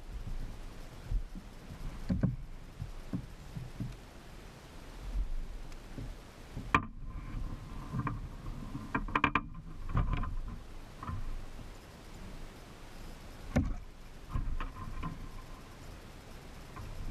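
Irregular knocks and bumps of gear on a kayak, some dull and low, a few sharp, with a faint ringing after some of the clicks.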